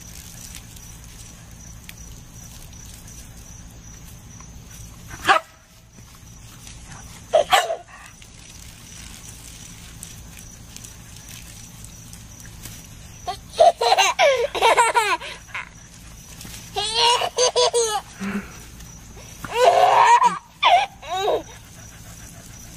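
A dog barks and a baby laughs. There are two short sharp sounds in the first half, then three bursts of the baby's laughter in the second half.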